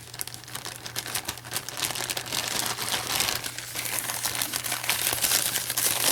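Packaging crinkling and rustling as it is handled and unwrapped, a continuous run of small crackles.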